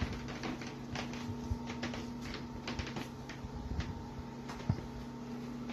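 Irregular light clicks and taps from kitchen utensils and dishes being handled while buns are buttered, over a steady low electrical hum.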